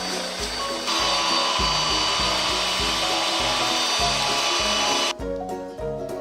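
A power tool's motor running steadily with a high whine for about four seconds, then cutting off abruptly, over background music.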